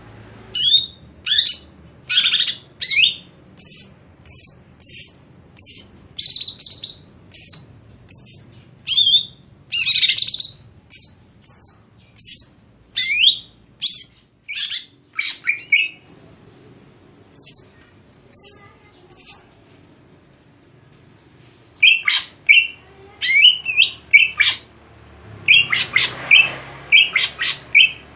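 Cucak ijo (green leafbird) singing: a long run of short, sweeping whistled notes, one or two a second, with a few seconds' pause after the middle before choppier notes start again.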